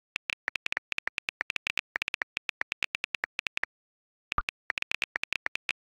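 iPhone on-screen keyboard key clicks from fast typing, several taps a second. They pause briefly, then a single lower, fuller pop about four and a half seconds in as a WhatsApp message is sent, and the quick typing clicks resume.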